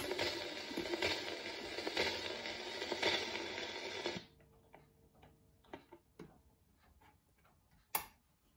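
Teppaz Oscar record player's stylus riding the end of a spinning record: surface hiss with a regular click about once a second. About four seconds in the hiss cuts off suddenly as the tonearm is lifted. Faint knocks of the arm being handled follow, then a single sharp click near the end.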